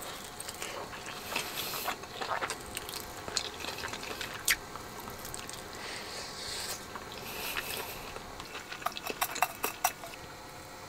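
Close, wet chewing and mouth sounds of someone eating soft boiled beef dipped in sauce, with a few sharp light clicks of bowls and dishes, the loudest about four and a half seconds in.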